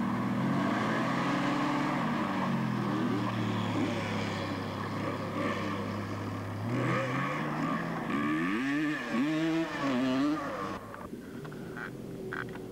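A car engine revving. Its pitch climbs and falls back, holds low for a few seconds, then swings up and down several times, before dropping away to a fainter run near the end.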